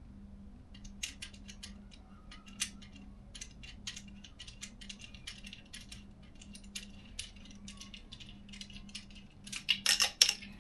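Irregular light clicks and small metallic rattles of hand tools and scooter parts being handled, over a faint steady hum, turning into a louder clatter near the end.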